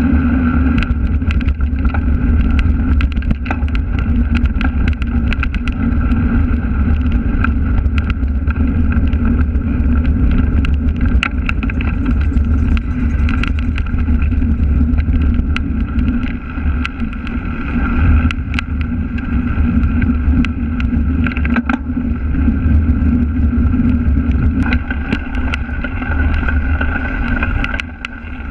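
Cyclocross bike rattling and rumbling over dirt path, cobbles and grass, picked up by a camera mounted on the bike, with frequent sharp clicks and knocks from the bike and wind on the microphone.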